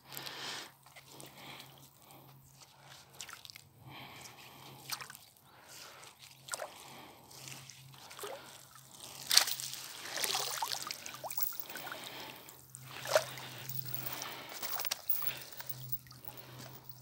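Lake water sloshing and dripping as a fishing net and line are handled at the water's edge, with irregular small splashes; the sharpest come about nine and thirteen seconds in. A faint steady low hum runs underneath.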